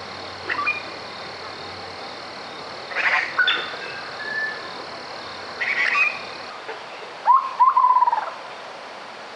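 A few short outdoor animal calls, chirping notes with quick pitch slides, the loudest a run of repeated notes near the end. Under them is a steady high-pitched hum that stops about six and a half seconds in.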